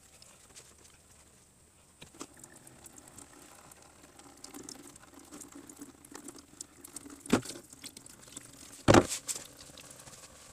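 Petrol trickling and pattering from a Volvo S60's disconnected fuel line into a container under the car, mixed with small clicks and rustling as the plastic quick-connect fittings on the fuel filter are squeezed and pulled off. Two sharper knocks come about seven and nine seconds in.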